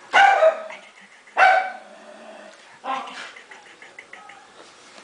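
A dog barks three times: two loud barks in the first second and a half, then a weaker third about three seconds in.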